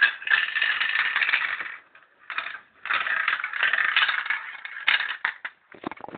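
Marbles rolling and clattering down a toy marble run track: a dense rattle that breaks off about two seconds in, starts again, and ends in a few separate clicks near the end.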